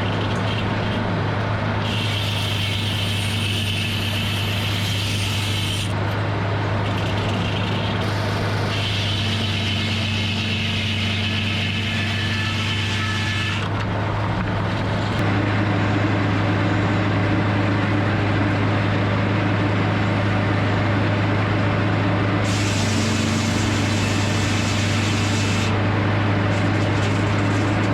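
Edmiston hydraulic circle sawmill running with a steady engine drone that steps up a little about halfway through. Three times, for a few seconds each, a higher hissing noise rides over the drone.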